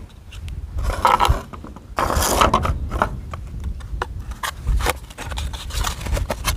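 Hard plastic scooter cylinder cooling shroud pieces being handled, scraping and rubbing against each other in irregular strokes, with scattered light clicks and knocks as the cut halves are fitted together.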